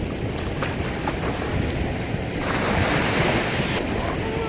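Small surf waves washing onto a sandy beach, with wind rumbling on the microphone. There is a brighter rush of noise for over a second about halfway through.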